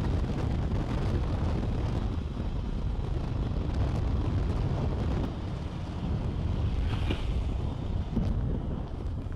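Heavy wind buffeting the microphone on a moving motorcycle, with the motorcycle's engine running underneath.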